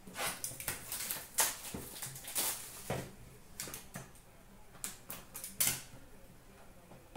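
A cardboard box of trading cards handled and opened by hand: irregular rustles, scrapes and sharp taps of cardboard and packaging.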